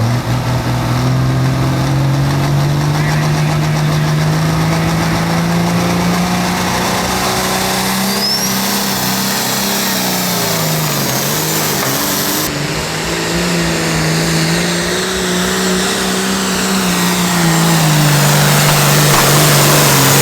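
A Pro Farm class pulling tractor's turbocharged diesel engine running hard under load while pulling the sled. Its pitch climbs at first, then sags and wavers about halfway through as the load builds, and it is loudest near the end.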